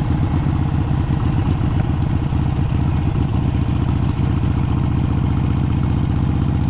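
Harley-Davidson Sportster's air-cooled V-twin, bored out to 1275 cc with a Hammer big-bore kit and still being broken in, running at a steady, even speed.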